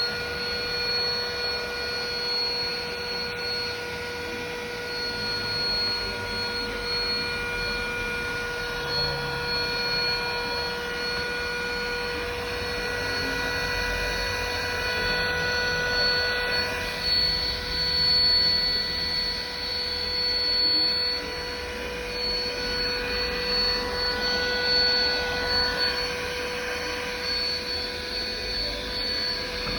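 Portable handheld vacuum cleaner running, a steady high motor whine over rushing air, wavering a little in pitch and loudness in the middle.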